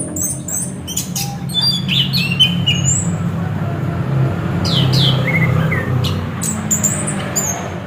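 Chestnut-capped thrush (anis kembang) singing a varied run of short high chirps, slurred whistles and falling notes with brief gaps, over a steady low hum.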